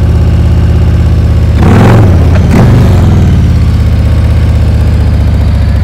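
Harley-Davidson touring motorcycle's V-twin engine running steadily at low revs through a slow-speed manoeuvre, with a brief rush of noise about two seconds in.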